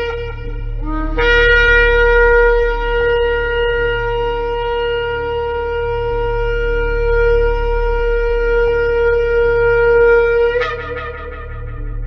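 Shofar blown: a short low note about a second in, then one long steady tekiah blast of about nine seconds that cracks upward and cuts off near the end, with a short ringing tail.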